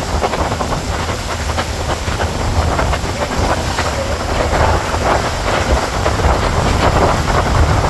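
Strong wind buffeting the microphone over a steady engine rumble and the rush of choppy water around the boat.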